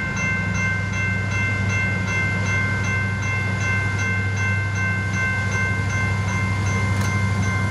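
Railroad grade-crossing warning bell ringing in a steady, even rhythm, over a low steady rumble from an approaching diesel freight train.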